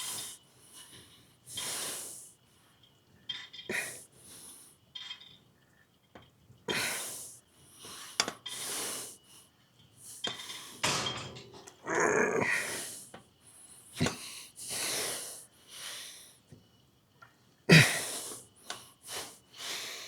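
A man breathing hard with exertion: irregular forceful exhales and sniffs, roughly one every second or two.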